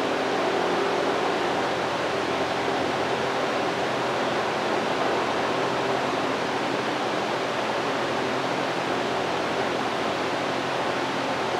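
Steady fan-like hiss with a faint low hum from a CNC router running a diode-laser engraving job, its cooling fans and motors running without a break.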